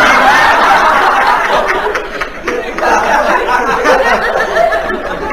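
Audience laughing loudly at a joke's punchline. The laughter ebbs, swells again about halfway through, and dies down near the end.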